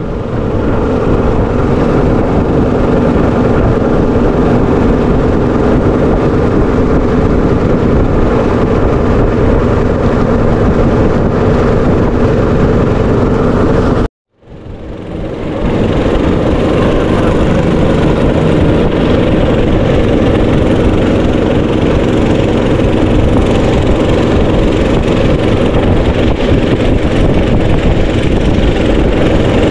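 Boat motor running steadily under way, a loud, even drone. It cuts out abruptly about halfway through and fades back in.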